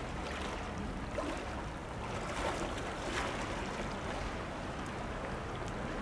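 Steady rush of wind and calm sea water washing among shoreline rocks, with a few faint ticks.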